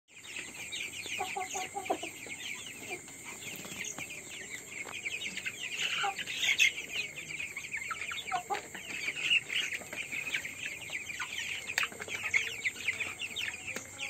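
A flock of young chickens peeping nonstop: many overlapping short, high chirps, with a few lower clucks about a second in.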